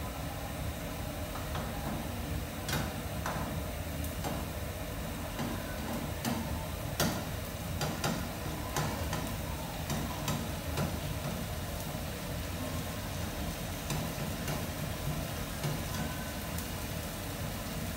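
Commercial kitchen ambience: a steady hiss and hum with irregular sharp clinks of metal utensils and pans.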